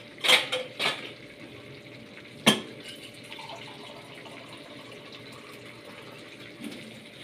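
Water splashing into a pan of stewed eggplant in tomato sauce in two short pours, then a single sharp clink against the cookware about two and a half seconds in. A faint steady hiss from the pan follows.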